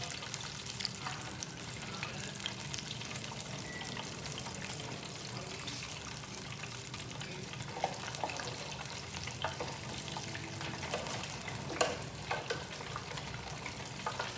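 Beer-battered lobster tails and shrimp frying in hot oil: a steady crackling sizzle, with a few short sharper clicks partway through.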